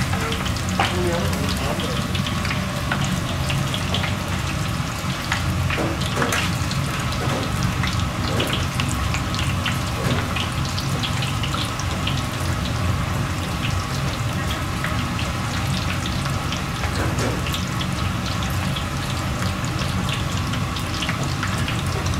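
Kitchen at work: a steady hiss over a low hum, with scattered light clicks and clatter, and people talking faintly in the background.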